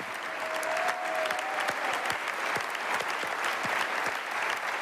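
Large audience applauding, a dense steady clapping from many hands.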